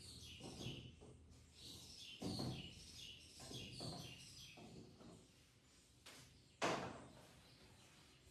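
Small birds chirping in quick repeated notes through the first half, with a few soft knocks and one sharper, louder knock about two-thirds of the way in.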